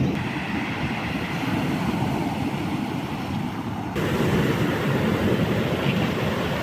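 Rough Black Sea surf washing and breaking on the shore in a storm, a continuous low rush with wind buffeting the microphone. The rush grows suddenly louder about four seconds in.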